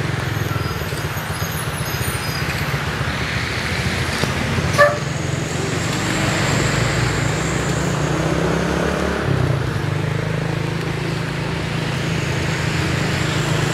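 Roadside traffic: a steady low drone of heavy vehicle engines with tyre and road noise, and one brief sharp blip about five seconds in.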